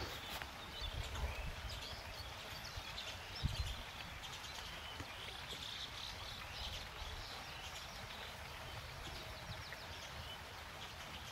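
Outdoor ambience with birds chirping, mostly in the first half, over a low rumble and a few soft bumps from the handheld phone moving.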